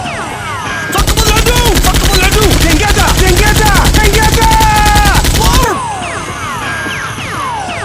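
Rapid automatic gunfire effect, about ten shots a second, for about four and a half seconds starting a second in, with shouting voices over it. Before and after the burst there are repeated falling whistle-like tones.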